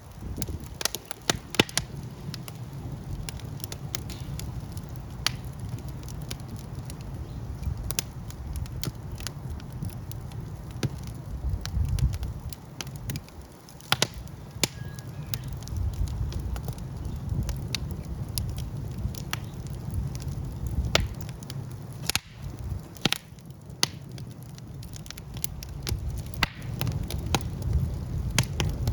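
Fire in a fireplace burning and crackling: irregular sharp pops and snaps over a steady low rumble of the flames.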